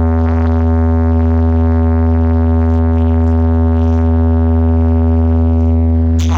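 Large DJ loudspeaker system playing a loud, steady low test tone with many overtones during a sound check; a falling pitch sweep begins right at the end.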